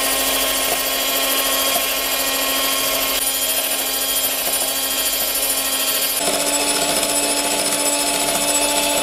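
Sayona electric hand mixer running steadily, its beaters whipping whipped-cream powder into cold milk. Its motor whine steps up slightly in pitch about six seconds in.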